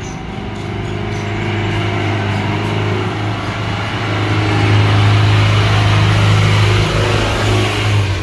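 Mahindra Tourister Excelo bus driving up and passing close by, its diesel engine drone growing steadily louder as it nears and loudest about five to seven seconds in.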